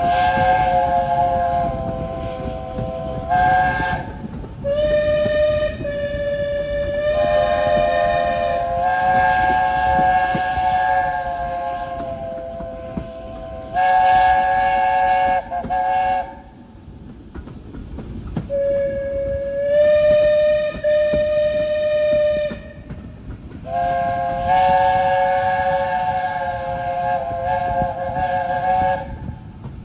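Steam locomotive chime whistle sounding about six long blasts of several seconds each, with short gaps between them. Each blast is a chord of several notes, and some open on a single lower note before the full chord sounds. A steady low rumble runs underneath.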